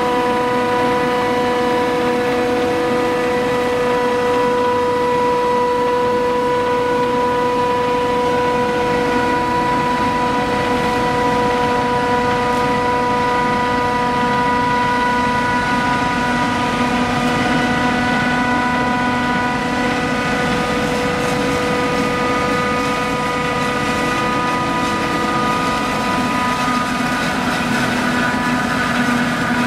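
Claas Jaguar 960 forage harvester running under load while chopping maize: a loud, steady machine drone with a steady high whine over it.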